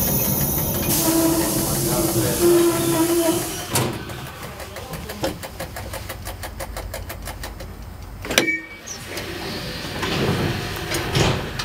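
Tram heard from inside the driver's cab as it rolls to a stop: a low hum with a steady whine for the first few seconds, which drops away as the tram halts. Then it stands quieter, with fast, even ticking, one sharp knock about eight seconds in, and road traffic passing close by near the end.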